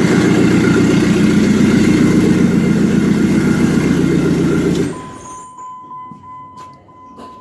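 Jeep Cherokee engine idling steadily, running again on a replacement crankshaft sensor, then switched off and cutting out abruptly about five seconds in. A faint steady high tone and a few clicks follow.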